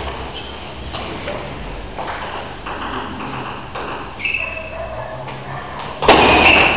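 Steady hall room noise, then a brief ping about four seconds in, and about six seconds in a louder cluster of sharp clicks with a short ringing ping: a table tennis ball bouncing on a hard surface.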